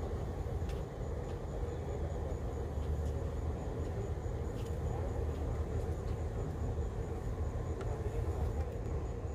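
Steady low rumble of idling engines.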